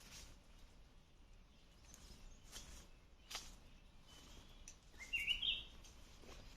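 A bird calls once about five seconds in, a short phrase stepping upward in pitch, over faint outdoor background with a couple of soft clicks earlier on.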